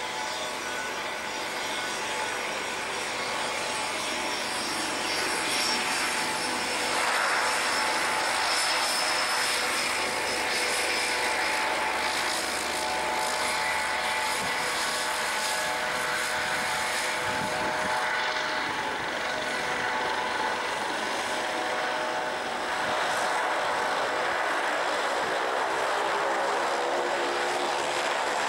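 Cessna 208B Grand Caravan's Pratt & Whitney Canada PT6A-114A turboprop running as the aircraft taxis, a steady turbine whine with propeller noise, growing louder about a quarter of the way in and again near the end.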